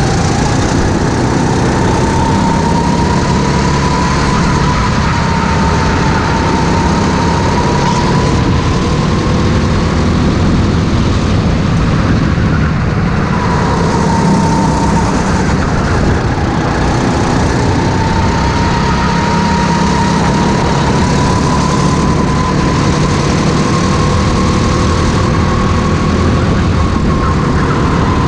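Racing go-kart engine heard from on board at full throttle, its high note rising and falling as the kart accelerates down the straights and slows for the corners, dipping briefly about twelve seconds in.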